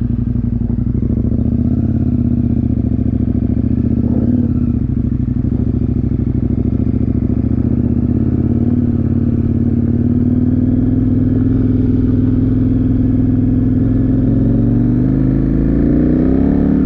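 KTM motorcycle engine running steadily under way, its revs climbing near the end as the bike accelerates.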